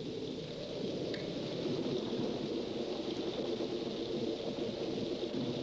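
Steady rushing noise of wind and rain, a storm sound effect.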